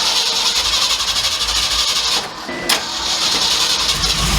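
Starter cranking the 1967 Mercury F250's Ford V8 in two tries of about two seconds each, with a short pause and a click between them. The engine turns over but does not catch: the distributor has just been reinstalled and the ignition timing is not yet set.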